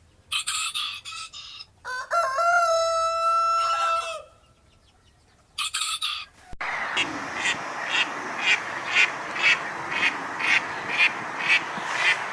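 Chicken calls: short clucking bursts, then a rooster crowing in one long call of about two seconds. From about six and a half seconds a steady hiss sets in, with sharp pulses about twice a second.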